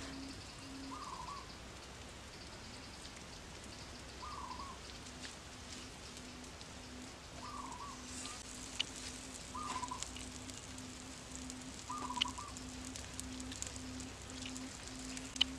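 Fire under a cooking stone crackling with a soft hiss and sharp pops now and then. A bird gives short warbled calls every two to three seconds over a low tone that pulses about twice a second.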